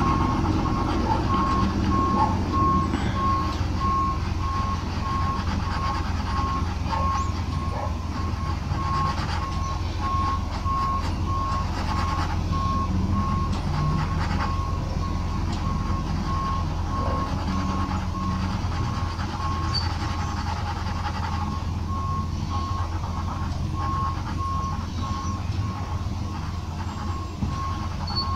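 Evenly spaced electronic beeps at one high pitch, repeating steadily over a low, steady rumble.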